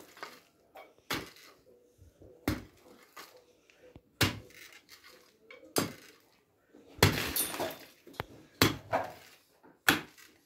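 Pickaxe striking compacted earth and rubble, a sharp impact about every second and a half as clods and stones break loose. About seven seconds in comes a longer stretch of loose dirt and stones scraping and tumbling.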